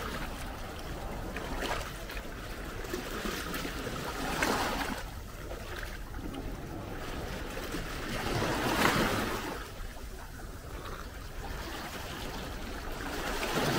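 Small waves lapping and washing over flat reef rock and stones in shallow water, swelling louder twice, about four and a half and nine seconds in.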